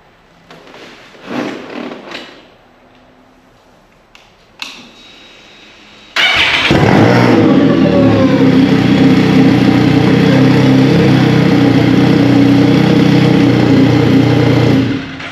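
Can-Am Spyder engine starting about six seconds in, jump-started from a portable booster pack clamped to its battery, catching at once and then idling steadily until it is shut off near the end. Before it, only faint handling clicks.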